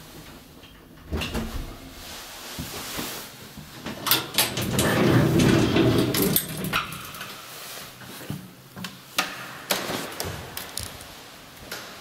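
Elevator car's folding metal gate of vertical bars being pulled open by hand: a long rattling, scraping slide about four to six seconds in, with sharp clicks and clanks of the gate and latch before and after.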